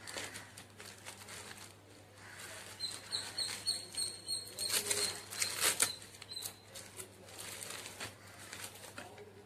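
Plastic packaging crinkling and rustling as hands unwrap a bubble-wrap pouch holding a lapel microphone, loudest in a few sharp crackles about five to six seconds in. A quick run of short high chirps comes in between about three and four and a half seconds in.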